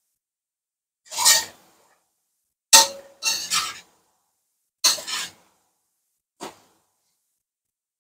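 Metal spatula scraping and stirring fish pieces and spices around a wok, in five short strokes with pauses between them.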